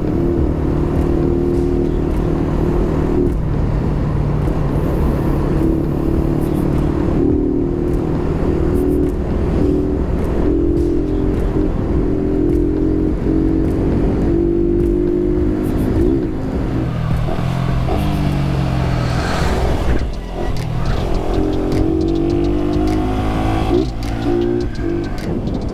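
Motorcycle engine running at a steady cruise under a constant low rumble; its pitch drops about 17 seconds in as it slows, then climbs again a few seconds later.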